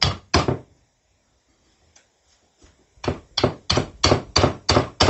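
Claw hammer striking a steel socket extension to punch the metal centrepiece out of an old shock absorber's mounting eye: two sharp blows, a pause of about two and a half seconds with a few light taps, then a quick run of blows about four a second.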